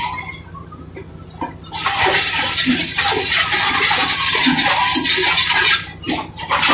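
Caterpillar crawler bulldozer's diesel engine running under load as the machine crawls onto rubble and a broken concrete curb. From about two seconds in come loud clattering of its steel tracks and crunching of debris, easing briefly about six seconds in.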